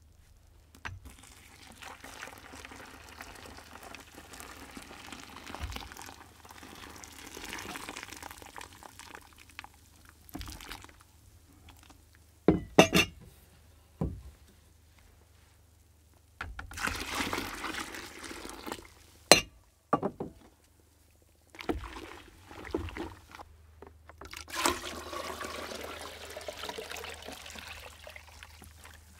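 Hot water poured into a bucket of wood ash to make lye, in three long pours, with a few sharp knocks between them.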